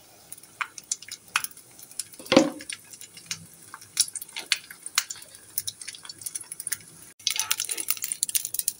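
Ghee crackling and popping in a pan under a frying naan, in scattered sharp pops that grow denser near the end, with one louder knock about two and a half seconds in.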